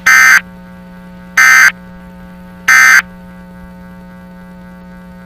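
Three short, loud bursts of Emergency Alert System digital data tones, about 1.3 seconds apart: the End of Message code that closes an alert broadcast. A steady low hum runs underneath.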